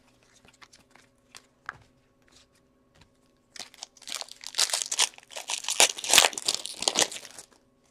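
Wrapper of a hockey card pack being torn open and crinkled. A few faint ticks of cards being handled come first, then from about three and a half seconds in a dense crackling of the wrapper that stops shortly before the end.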